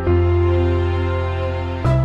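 Background music: slow, gentle instrumental with held chords, moving to a new chord at the start and again near the end.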